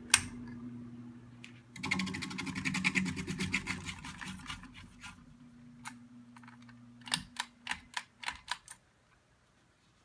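A ceiling fan motor hums low and steady, broken by hard clicking and rattling as a hand handles the fixture. There is one sharp click at the start, a couple of seconds of rapid rattling clicks, then a run of about seven quick clicks. The hum stops near the end.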